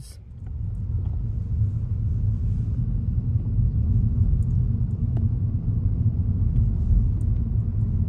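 Car driving slowly, a steady low rumble of engine and tyres heard from inside the cabin, swelling up over the first second.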